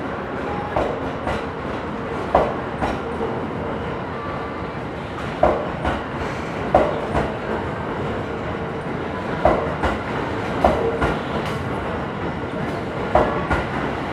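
E26 series sleeper coaches rolling past as the train pulls out, a steady rumble broken by wheel clacks over the rail joints, mostly in quick pairs as each bogie crosses, every one to three seconds.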